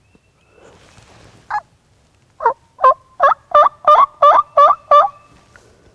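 Turkey call yelping loudly and close by: one short note, then a run of eight evenly spaced yelps, about three a second, each breaking from a higher tone down to a lower one.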